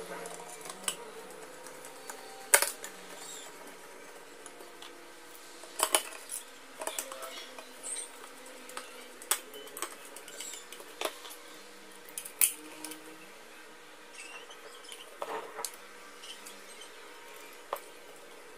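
Scattered clicks, taps and light knocks of small parts and tools being handled while a clothes iron is reassembled after repair. Two sharper knocks stand out, one about two and a half seconds in and one about twelve seconds in.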